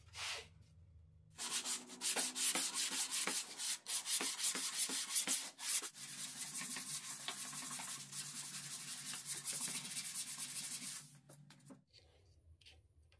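Hand sanding the edge of a plywood board with a sandpaper-faced wooden sanding block, in quick back-and-forth strokes. It starts about a second in, pauses briefly near the middle, and stops near the end.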